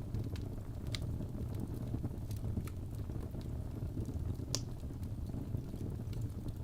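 Wood fire crackling: scattered sharp pops and snaps over a steady low rumble, with one louder pop about four and a half seconds in.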